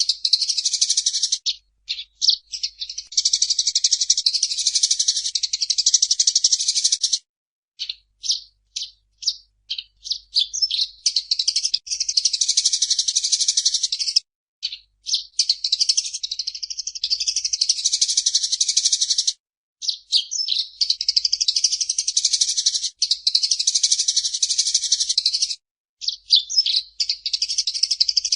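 Eurasian tree sparrow chattering in fast, dense runs of high chirps, each run lasting a few seconds, broken by short pauses about every five to seven seconds.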